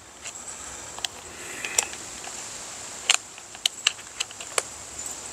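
Scattered small plastic clicks and taps as AAA batteries are seated in a VVV CM-205FN paint thickness gauge and its plastic battery cover is pressed shut, the sharpest click about three seconds in.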